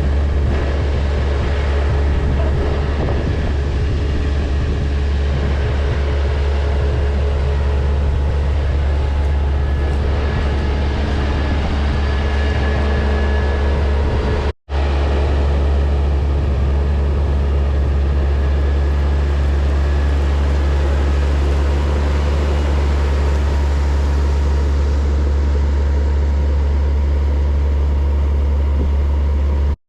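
Steady drone of a large diesel engine on harvest machinery, with a strong deep hum. It breaks off for an instant about halfway through.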